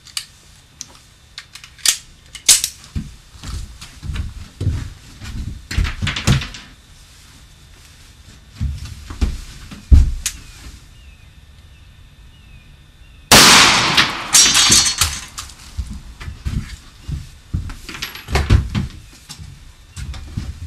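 A single 9mm Luger gunshot about 13 seconds in, a sharp crack that fades over a second or two, amid scattered knocks and clicks.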